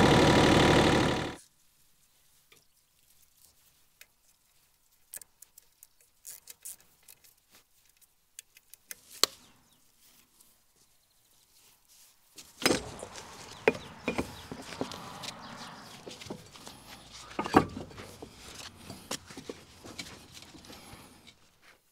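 A mini excavator's engine running for about the first second, then cut off sharply. After that, scattered knocks and clunks of a rubber track being worked back onto its sprocket and rollers by hand, busier in the second half over a faint rustling hiss.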